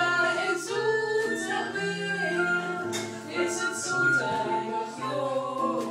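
Women singing a song into a handheld microphone over a backing track of music, with held notes stepping from one pitch to the next over a steady bass line.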